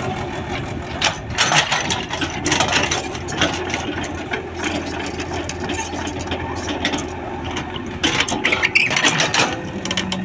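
Komatsu PC71 excavator's diesel engine running steadily, with frequent short knocks and clanks as the bucket digs into and drops soil, busiest near the end.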